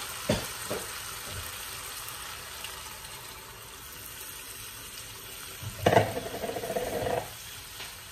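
Chicken masala sizzling in a non-stick frying pan as boiled red kidney beans are tipped in from a plastic bowl, with a sharp knock just after the start. About six seconds in, a spatula scrapes and clatters in the pan for about a second.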